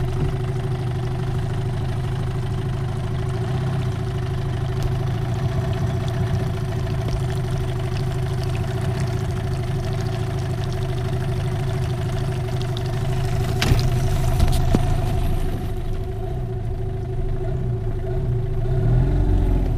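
Yamaha 15 hp tiller outboard motor running steadily at low speed, with a single sharp knock about fourteen seconds in and the motor getting a little louder near the end.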